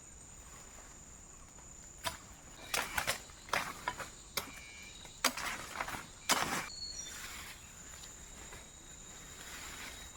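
Irregular rustles and knocks, a cluster of them between about two and seven seconds in, from brush and branches being handled while a camp is set up, over a steady high insect drone.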